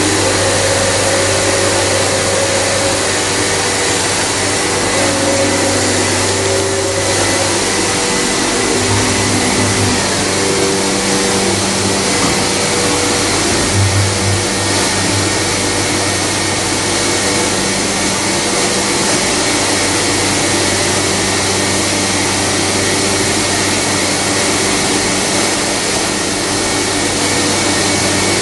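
CMS CNC machining center running: a steady, loud rushing noise with low humming tones that change pitch every few seconds.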